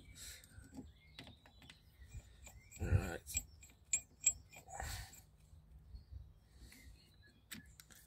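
Small metal tools clicking and clinking against a seized rear brake caliper, with a quick run of ringing metallic ticks around the middle. Two brief vocal sounds from the mechanic come at about three and five seconds in.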